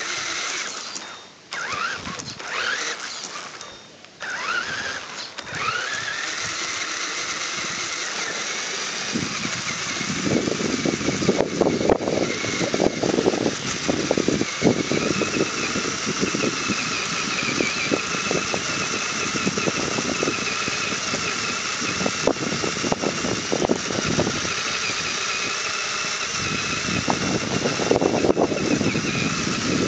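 Radio-controlled crawler's motor and gearbox whining, the pitch rising and falling with the throttle over the first few seconds, then holding steady. From about ten seconds in, a busy rattling rumble of the chassis and tyres over rough ground joins the whine.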